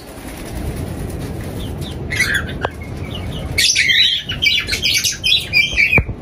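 Cockatiels chirping and squawking, a few calls at first and then many at once from about halfway through, over a low rumbling noise.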